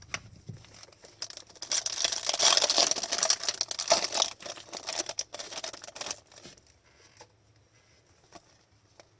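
A trading card pack's wrapper being torn open and crinkled: a dense crackling rustle for a few seconds that dies away about two-thirds of the way through.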